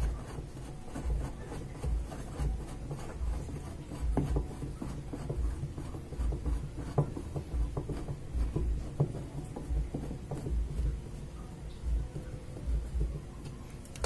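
Screwdriver turning the centre screw of a National top-loading washing machine's pulsator: irregular small scraping and clicking of the tip in the screw head and the screw in its plastic boss, with soft low knocks of handling.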